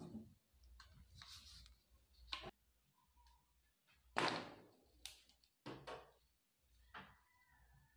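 Hollow plastic knocks and thunks from a homemade PVC-pipe bolt action being handled, the blue pipe bolt sliding and knocking inside the orange pipe barrel. There are a handful of separate knocks, the loudest a sharp thunk about four seconds in.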